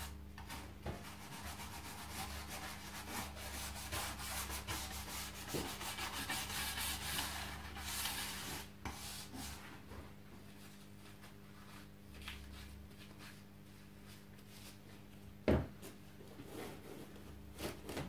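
A brush scrubbing the wooden stock of a musket coated in acidic stripping foam, lifting the old finish down to bare wood; steady scratchy strokes for about the first nine seconds, then quieter, with one sharp knock near the end.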